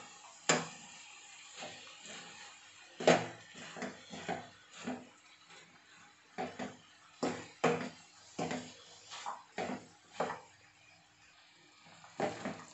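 Spatula scraping and knocking against a non-stick frying pan while stirring a dry stir-fry of chopped raw banana and cowpeas, in irregular strokes, a few much louder than the rest.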